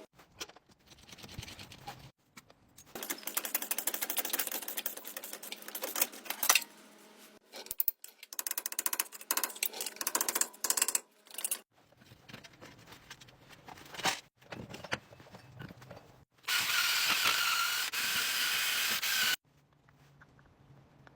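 Bad wheel bearing on a second-generation Dodge Ram 1500 clicking and grinding in stop-start bursts of rapid clicks as the hub turns. Near the end comes a steadier rough noise with a faint whine, lasting about three seconds.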